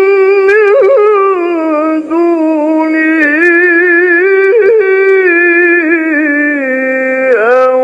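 A male Quran reciter chanting in the melismatic mujawwad style: one long held line with ornamented pitch turns and short breaks about two seconds in and again past four and a half, sinking lower near the end.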